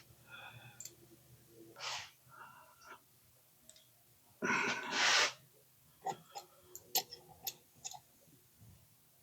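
Quarter-drive ratchet clicking in single sharp clicks, about two a second, as a thread tap is worked into a mower wheel's grease-fitting hole. A heavy breath comes about halfway through.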